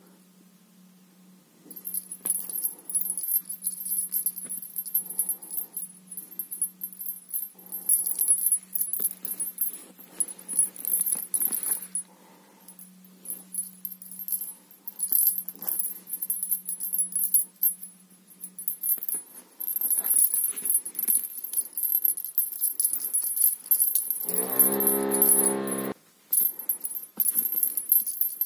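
Small bell in a feather cat teaser wand jingling in irregular bursts as the toy is shaken and batted about. About three quarters of the way through, a short steady tone sounds for under two seconds.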